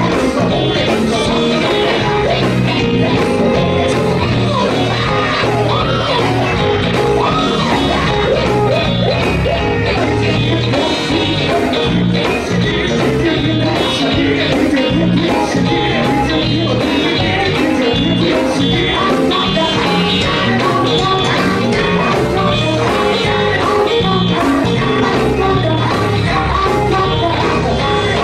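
Live gospel group performing: a lead singer sings hard over electric guitar and a steady drum-kit beat, with the full band playing throughout.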